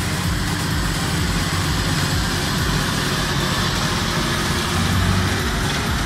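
John Deere 7830 tractor's six-cylinder diesel running steadily under load while pulling a round baler through a windrow, with the baler's pickup and chamber machinery mixed in.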